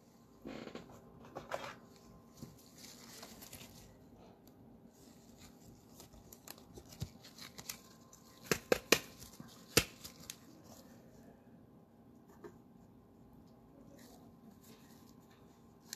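Trading card and plastic card sleeves being handled, faint rustles and scrapes with a few sharp taps and clicks about eight to ten seconds in, as the card is put into a protective sleeve and holder.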